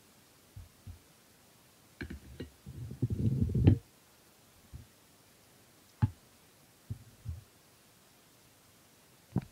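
Scattered low thumps and knocks, with a louder rumbling cluster about two to four seconds in; the chop in the pan is not heard sizzling.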